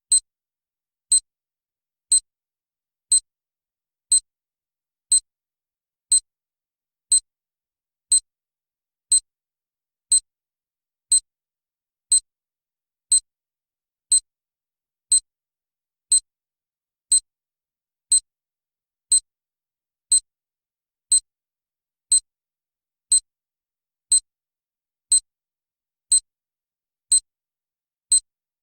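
Electronic countdown timer beeping: one short, high-pitched beep every second, evenly spaced, with silence between the beeps.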